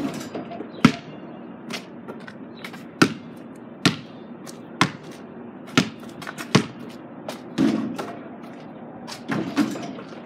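A basketball being bounced, one sharp bounce roughly every second.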